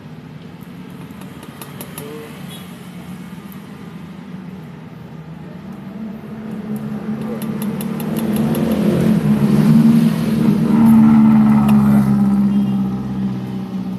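A motor vehicle's engine passing close by: a hum that builds from about six seconds in, is loudest a few seconds later, then fades away. A few light clicks are heard along with it.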